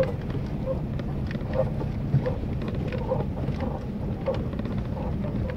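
Vehicle cabin noise while driving on a rough dirt track: a steady low engine and tyre rumble with scattered light rattles and knocks from the bumpy ride.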